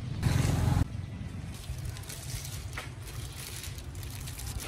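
Outdoor street background: a steady low rumble, with a brief loud rushing noise lasting about half a second just after the start and a faint click later.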